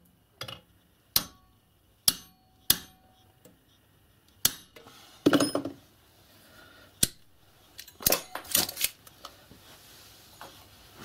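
A hammer tapping a brass dolly held against a steel bicycle spoke clamped in a vise, setting a parallel bend: sharp metallic taps about a second apart. In the second half come clattering metal clinks as the locking pliers clamping the spoke are handled.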